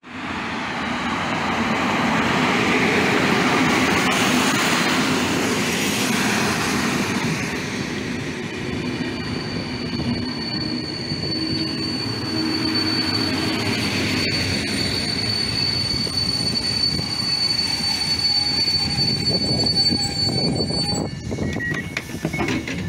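Locomotive-hauled Intercity passenger train running into the platform at speed, with a loud rumble of passing coaches. A steady high squeal comes in about nine seconds in as the train slows, and it stops near the end as the train halts.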